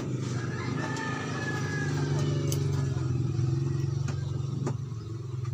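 A steady engine hum, like a motor vehicle running close by, grows louder toward the middle and eases off near the end. A few sharp clicks sound over it as the plastic clips of an LED TV's bezel are pried loose.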